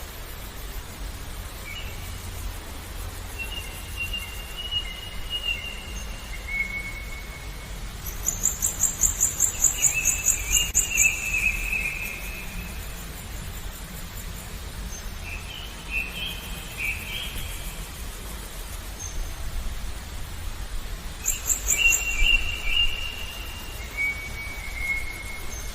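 Birds singing: a series of drawn-out whistled notes, some gliding down in pitch. A rapid, high-pitched trill sounds twice, once about a third of the way in and again near the end, with a steady low rumble underneath.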